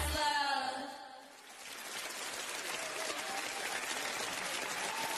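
A live pop song's last sung note dies away about a second in. Then audience applause swells up and holds steady.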